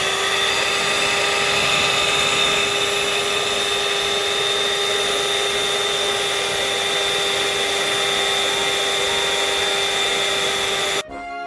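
Electric stand mixer running at a steady speed with a constant whine, its twin beaters mixing an egg into thick fruitcake batter. The motor sound cuts off near the end.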